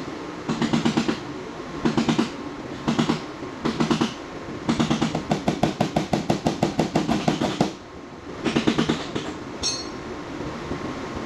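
Bursts of rapid light hammer taps on sheet metal, about eight to ten a second, the longest run lasting about three seconds in the middle, as a dent in a body panel is worked out. A brief high squeak comes near the end.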